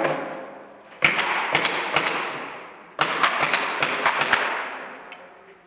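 Airsoft gunfire: two volleys of sharp, irregular cracks and pellet hits, about a second in and about three seconds in, each ringing on in a reverberant hall.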